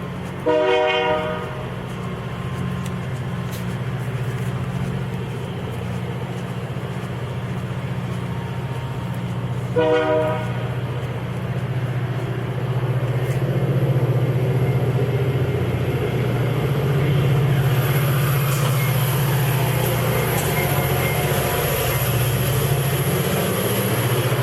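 GO Transit commuter train at a station, its engine running with a steady low rumble, and two short horn blasts about nine seconds apart. A thin high whine joins in during the last third.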